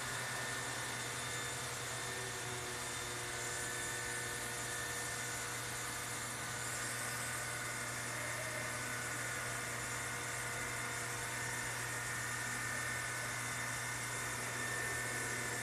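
Steady hum of running machinery: a constant low drone with several steady higher tones over a hiss, unchanging throughout.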